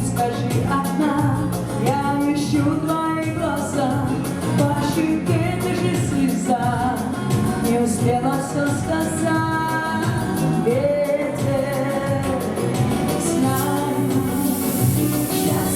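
Pop song with a sung melody over a full band accompaniment, with a rush of high hiss near the end.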